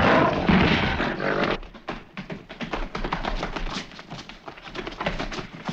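A gorilla roar, voiced by the actor in a gorilla suit, for about the first second and a half. Then a fast, irregular patter of short knocks and scuffs, as of feet scrambling on a floor.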